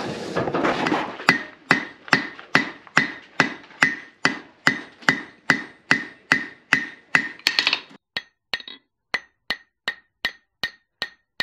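Blacksmith's hand hammer striking hot metal on an anvil, about two and a half blows a second, each with a short ringing note. About eight seconds in, the blows turn lighter and drier: the piece has cooled and is due to go back in the fire.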